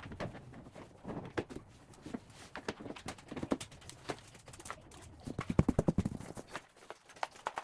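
Cat tree parts being handled and fitted together: scattered knocks and clicks, with a burst of rapid clicking about five and a half seconds in.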